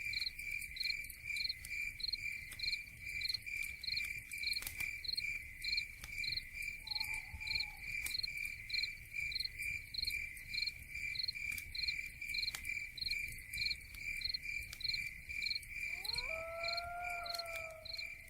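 Crickets chirping in a steady pulsing rhythm, about three chirps a second, with a brief lower call near the end.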